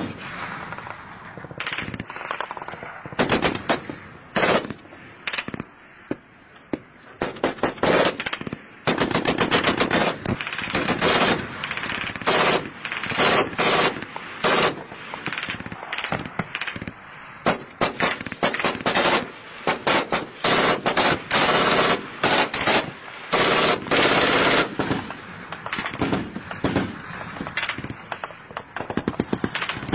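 Machine-gun fire: a few scattered shots at first, then repeated bursts of rapid shots from about a third of the way in, with short gaps between bursts.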